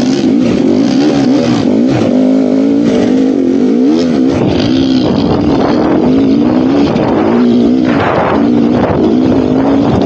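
GasGas dirt bike engine running on a trail ride. The engine note rises and falls constantly as the throttle is opened and closed, with a short rush of noise about eight seconds in.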